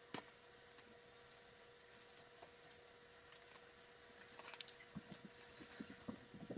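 Mostly near silence with a faint steady hum, one sharp click just after the start, then soft rustling and small clicks over the last couple of seconds as a leather shoulder-holster harness is pulled over the head and settled onto the shoulders.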